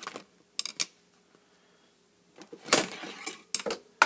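Handling noise of small objects: a few sharp clicks and knocks, and a short rustling clatter near the middle.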